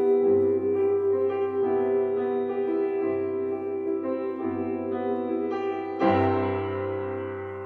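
Slow keyboard music: held chords that change every second or so, then a last chord struck about six seconds in that fades away.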